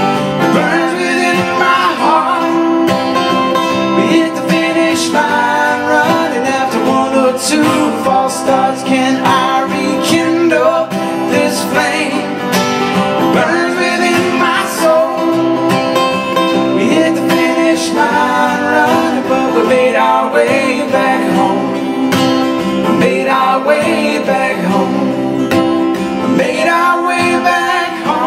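Two acoustic guitars played live in a country-folk song, with a voice singing over them.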